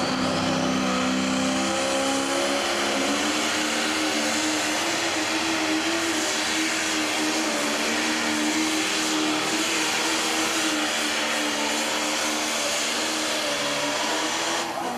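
Pro stock pulling tractor's turbocharged diesel engine running flat out under load as it drags the weight sled down the track, with a steady high whine over the engine note. The engine pitch climbs a little a few seconds in, and the sound backs off just before the end as the run finishes.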